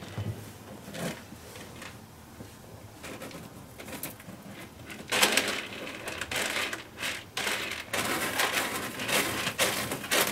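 A cat scratching and digging in the litter of its litter box: a few faint scratches, then from about five seconds in a run of gritty scraping as it covers the stool it has just passed.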